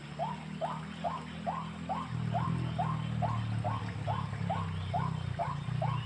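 White-breasted waterhen calling: one short note repeated steadily, about two and a half times a second, over a low steady drone that grows louder about two seconds in.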